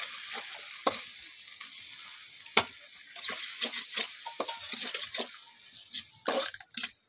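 Masala and chopped tomatoes sizzling in oil in an aluminium kadai. A metal spatula stirs and scrapes against the pot in quick clinks and knocks, and these come thicker after the first few seconds as the sizzle eases.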